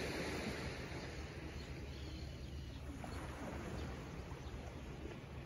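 Steady seaside ambience: a low rumble under a soft wash of noise, with no distinct events.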